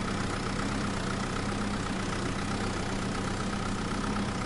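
Steady engine-like idling hum with a constant higher whine, holding level throughout.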